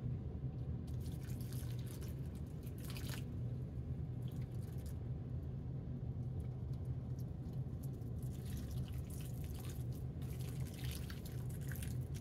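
Water poured from a plastic bottle onto the potting soil of a planter of seedlings, splashing and trickling in two spells, with a steady low hum underneath.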